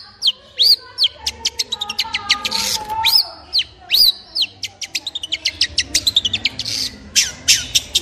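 Long-tailed shrike singing a busy song of rapid runs of sharp, high chips mixed with arched whistled notes.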